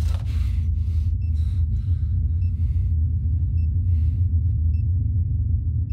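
A steady low rumbling drone of horror sound design, with a faint short high beep about every second and a quarter. Soft breathy rushes fade out over the first couple of seconds.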